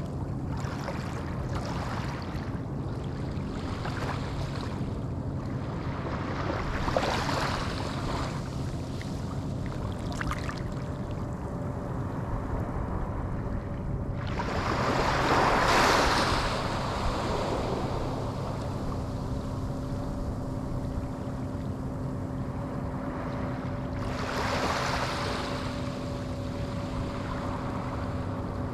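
Small ocean waves breaking and washing onto the shore in three swells, about 7 s, 16 s and 25 s in, the one near the middle the loudest, over a faint steady low hum.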